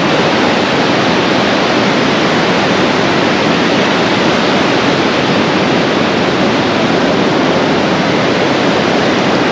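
Steady, even hiss of breaking surf and wind on the shore, with no let-up.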